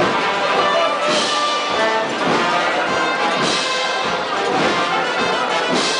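Brass band playing a slow processional march behind a Holy Week palio: brass holding sustained chords, with a strong beat a little more than once a second.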